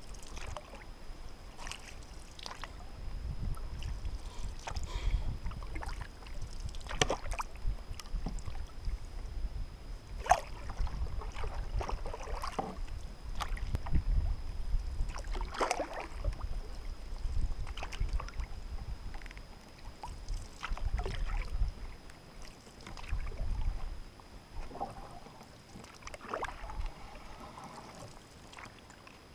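Canoe being paddled: paddle strokes dipping and splashing at irregular intervals of a couple of seconds, over a low rumble of water moving along the hull.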